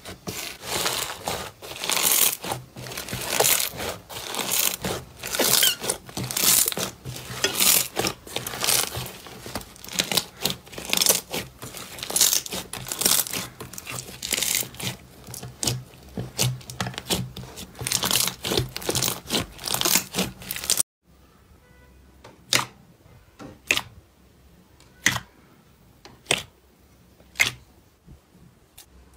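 A crusted slime being pressed, torn and kneaded by hand, crackling and crunching in dense bursts. About two-thirds of the way in, this stops suddenly and sharp single clicks follow, about one every second or so, from jelly slime being squeezed in the hands.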